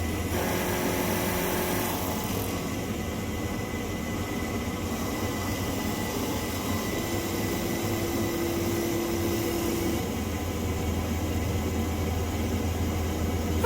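CNC wood lathe running as it turns a solid-wood vase blank: a steady motor hum with continuous cutting noise, and a faint added tone for a few seconds in the middle.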